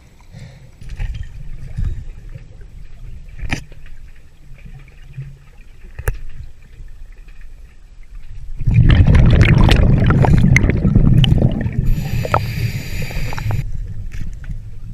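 Muffled underwater water noise with a couple of sharp clicks. A little past halfway comes a loud rush of scuba regulator exhaust bubbles lasting about three seconds, then a hiss through the regulator.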